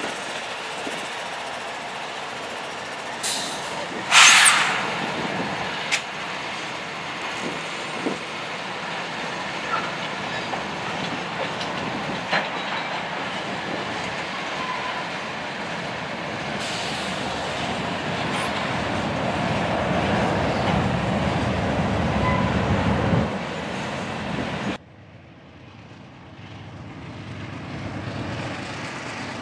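Diesel freight train with a Citirail CREX locomotive rolling past close by: a steady rumble of engines and wheels on the rails, with a loud clank about four seconds in, a few sharp clicks and brief wheel squeals. Near the end the sound drops off suddenly, then an approaching Amtrak passenger train slowly grows louder.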